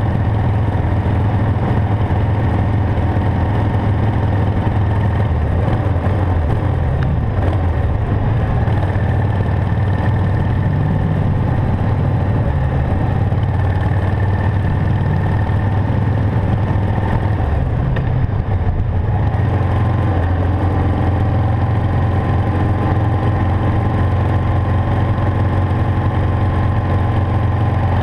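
Harley-Davidson Sportster XL883's air-cooled V-twin engine running while the motorcycle is ridden, a steady low rumble; about two-thirds of the way through the engine note briefly breaks and settles at a different pitch.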